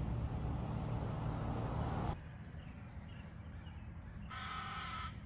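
Outdoor ambience: a steady low rumble for about two seconds that cuts off suddenly, then quieter background, and near the end a single drawn-out animal call of less than a second.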